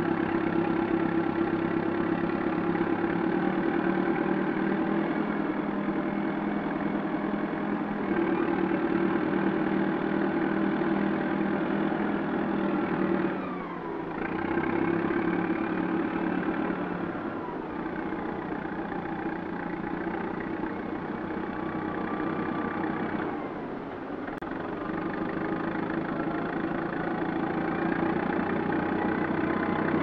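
Rome plow bulldozers (heavy crawler tractors fitted with tree-cutting blades) running, a steady heavy engine note while tearing down rubber trees. Twice, about halfway through and again near three-quarters through, the engine note drops and glides down before picking back up.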